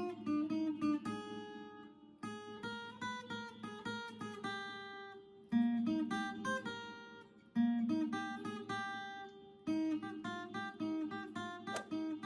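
Background music on acoustic guitar: picked notes that ring and die away, in short phrases that start afresh every two seconds or so.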